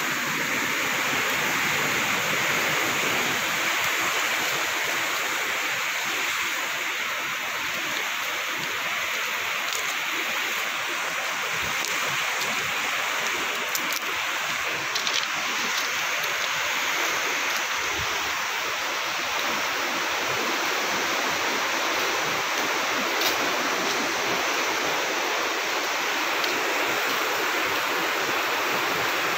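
Steady rushing of a fast river running over rocks in rapids.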